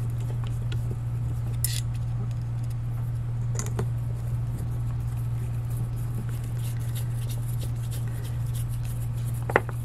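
A screwdriver working a small screw in the steel die head of a manual pipe threader, giving occasional sharp metal clicks and small ticks, with a louder click near the end. A steady low hum runs underneath throughout.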